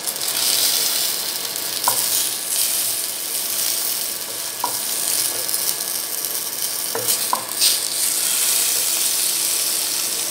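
Climbing perch frying in hot oil in a nonstick kadai, sizzling steadily as the fish are lifted out one by one with a wooden spatula. A few short knocks stand out, about two, five and seven seconds in.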